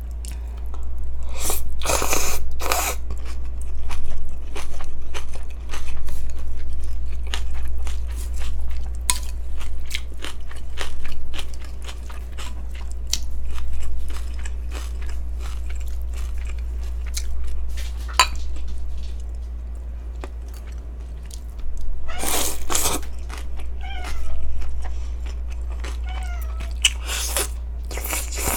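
Close-up eating sounds of cold naengmyeon noodles (yeolmu naengmyeon): wet chewing and mouth clicks, with loud slurps about two seconds in, a little past the middle, and near the end as noodles and broth are drawn in. A cat meows faintly twice in the background late on, over a steady low hum.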